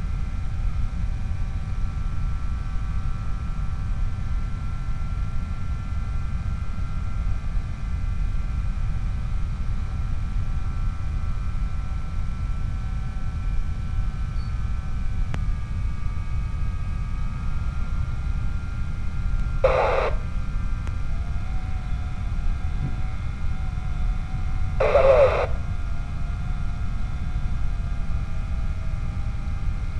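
Steady rush of wind and the faint whine of the Skyhunter FPV plane's electric motor, heard through its onboard video-link audio; the whine steps slightly in pitch about halfway through. Two short bursts of radio noise, each about half a second, come near the end.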